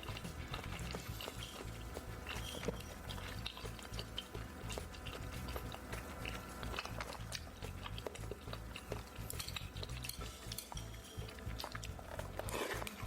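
Close-miked eating: chewing, with scattered light clicks of utensils against a bowl, over faint background music.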